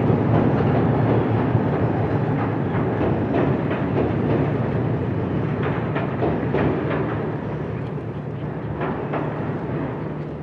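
Train running on the rails: a steady low rumble with irregular clicks and clanks from the wheels and cars, slowly getting quieter.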